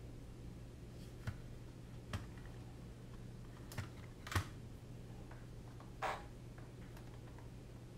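Five scattered, sharp clicks of someone working a computer's keys or mouse, the one a little past halfway the loudest, over a steady low hum.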